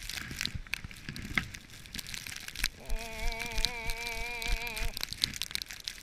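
Wind buffeting and rustling against the microphone of a camera on a moving chairlift in a blizzard, full of short crackles and clicks. From about three seconds in, a held, wavering tone with several overtones sounds for about two seconds over the crackle.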